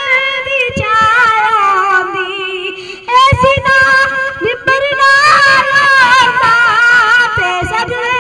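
A boy singing solo, without accompaniment, through a handheld microphone and loudspeaker. He holds long, high, wavering notes, with a short break between phrases about three seconds in.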